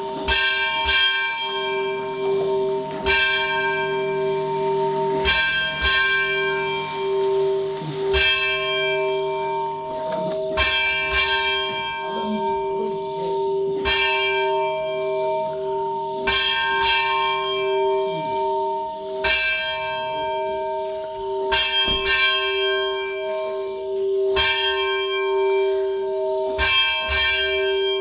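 A church bell ringing over and over, struck two or three times in quick succession every two to three seconds, with each strike's ringing carrying on under the next. It is rung to greet an arriving bishop.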